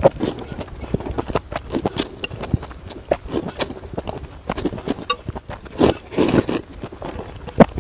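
Close-up slurping of thin vermicelli noodles out of a soupy bowl, with wet sucking and chewing in irregular bursts; the loudest slurps come about six seconds in.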